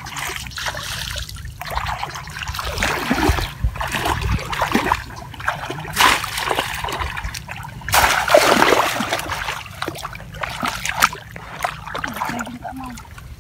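Shallow muddy paddy water splashing and sloshing as people wade through it and plunge bamboo basket fish traps into it, in irregular bursts, the loudest about six and eight seconds in.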